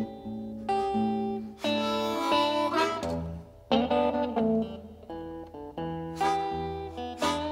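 Acoustic guitar music: plucked notes with several strummed chords.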